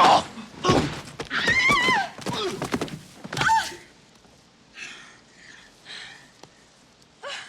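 Movie sound effects: heavy thuds mixed with loud wavering cries in the first few seconds, then quieter scattered knocks and cries.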